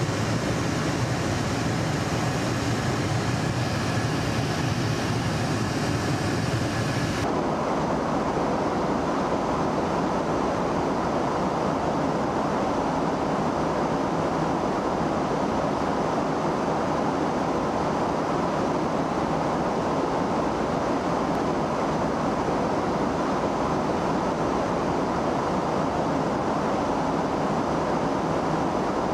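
Steady aircraft noise in flight: an even roar of engines and rushing air. About seven seconds in it changes abruptly from a bright hiss to a duller, more muffled roar.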